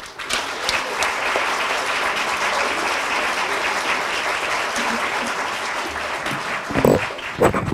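Lecture audience applauding, a steady patter of many hands clapping, which thins out near the end where a couple of thumps stand out.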